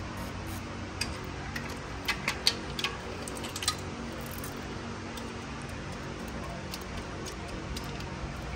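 A handful of short, sharp metallic clicks and taps, bunched between about one and four seconds in, from hand tools working against metal as a stud is worked out beside the EGR valve, over a steady low hum.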